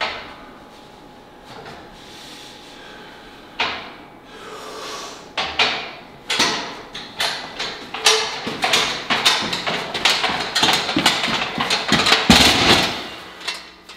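Strongman yoke loaded with weight plates, picked up with a clank a few seconds in, then clanking and rattling with each step as it is walked, about two or three knocks a second, growing louder as it comes closer.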